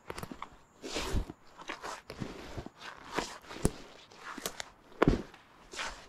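Footsteps crunching through deep snow at a walking pace, a step or two a second, some crunches sharper and louder than others.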